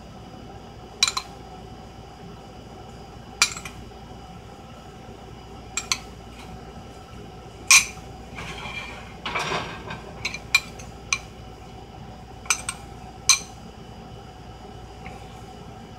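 Metal spoon clinking against a glass bowl while sauce is scooped out and spooned onto a plate: about ten sharp, separate clinks, with a couple of seconds of scraping about halfway through.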